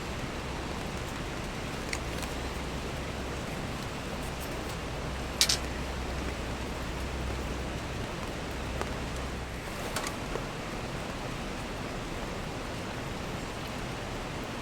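Steady rushing of a nearby mountain river, heard as an even wash of noise. A low rumble under it stops about two-thirds of the way through, and there are two or three sharp little clicks or knocks, the clearest about five seconds in.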